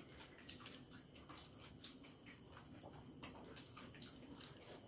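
Faint eating sounds of people chewing and slurping egg chow mein noodles: soft, irregular mouth clicks several times a second.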